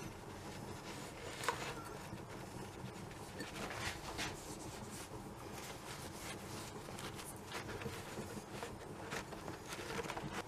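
Cloth rubbing and rustling over a metal tube as gun blue gel is wiped onto it, with scattered light taps and knocks from handling, the sharpest click about one and a half seconds in.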